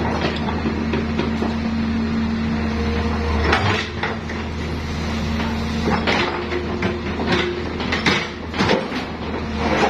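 Excavator engine running steadily, with several sharp metallic clanks and knocks over it.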